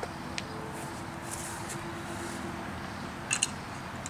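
A steady low hum with faint steady tones, and two sharp clicks in quick succession about three seconds in.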